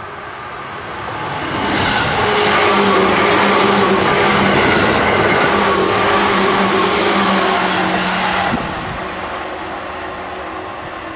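Seibu 10000 series limited express electric train passing close at speed. Its rumble swells as it approaches, then wheels on rail and a slightly falling motor whine run loud for about six seconds. The sound drops suddenly as the last car goes by and the train runs away down the line.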